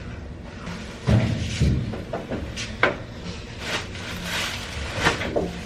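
Scattered handling noises: dull thumps about a second in, a sharp click near three seconds, and more knocks near the end.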